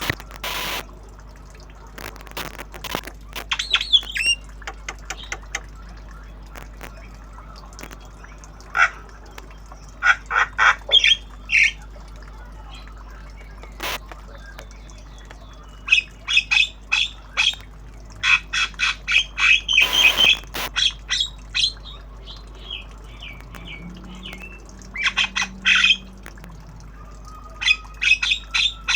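Young hand-fed Javan myna calling in quick runs of short notes, several bursts with pauses between them, along with a few sharp clicks.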